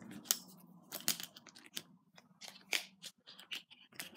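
Pens, pencils and highlighters from a pencil case being handled, clicking and clattering against each other in a string of short, irregular clicks.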